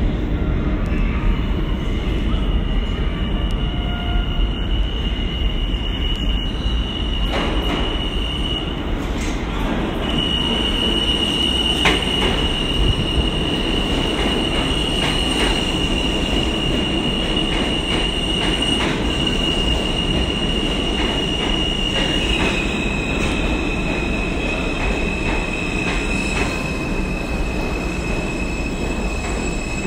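A New York City subway train of stainless-steel R160 cars runs past close by on the track beside the platform. The cars rumble steadily under a high, steady squeal from the steel wheels on the rails. The squeal breaks off for about a second near a third of the way in, then returns, and drops slightly in pitch about two-thirds of the way through.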